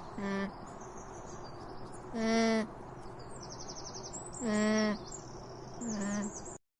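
An animal calls four times, a short pitched cry each time, over a background of chirping birds; a fast high trill is heard about halfway through.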